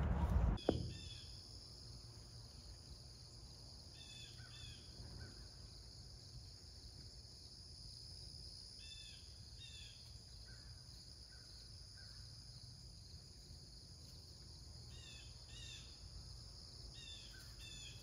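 Faint outdoor ambience: small birds chirping in short high notes, often in pairs, every few seconds over a steady high hiss. A louder background ends with a click within the first second.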